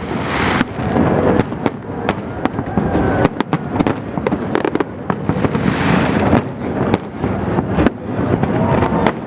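Aerial fireworks going off in quick succession: many sharp bangs over a continuous crackle. The crackling swells into a hiss about half a second in and again around six seconds.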